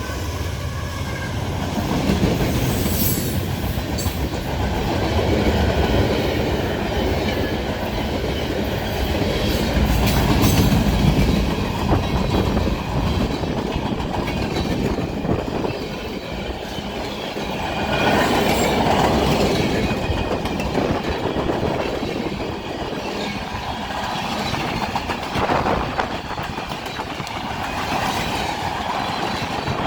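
Freight train rolling past, with a steady rumble, wheels clicking over rail joints and occasional brief wheel squeal.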